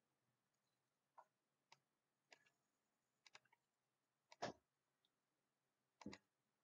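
Computer mouse clicking: scattered single clicks, then quick double clicks about halfway through and again near the end.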